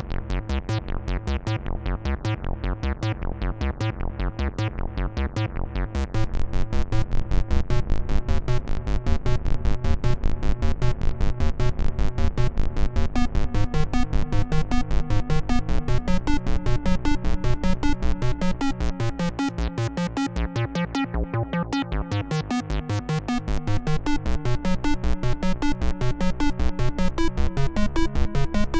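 Arturia MatrixBrute analog synthesizer playing a fast, repeating sequenced pattern. The tone brightens and gets louder about six seconds in, turns duller around twenty seconds, and brightens again shortly after.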